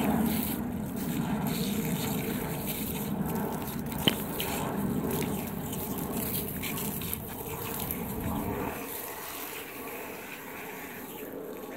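Water spraying from a garden hose as a young German Shepherd bites and mouths the hose end to make it spray. It weakens about three-quarters of the way through, and there is a single sharp click about four seconds in.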